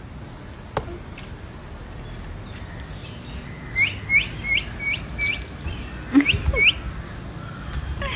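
A small bird chirping in quick runs of short rising chirps, about four a second.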